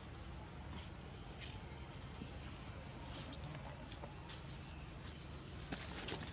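Insects trilling steadily in two unbroken high-pitched tones over a low outdoor hiss, with a few faint ticks from dry leaves being scuffed.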